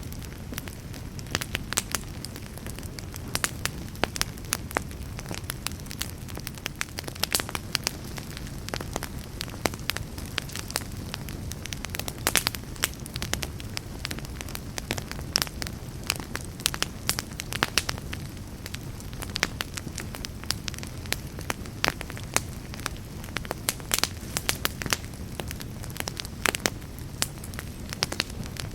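Fireplace fire crackling: many sharp crackles, several a second and unevenly spaced, over a steady low rumble of the flames.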